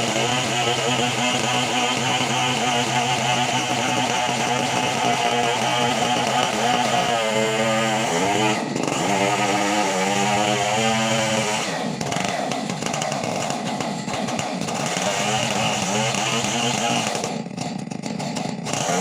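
Two-stroke chainsaw running at high revs. Its pitch sags and climbs again around the middle, and it eases briefly near the end.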